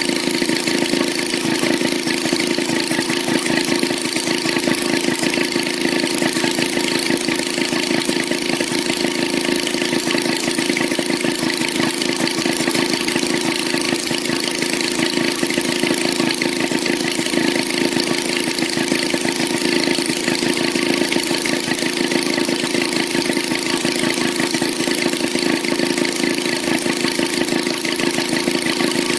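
Maytag Model 72 twin-cylinder two-stroke engine running steadily, with a rapid, even firing beat.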